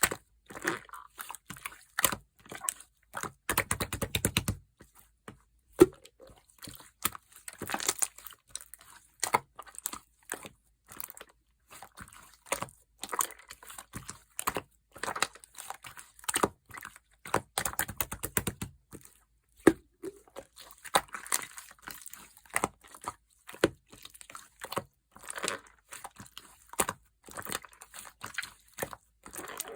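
Clear orange slime being squeezed and kneaded by hand, making sticky clicks and pops in irregular runs, with a few denser crackling stretches.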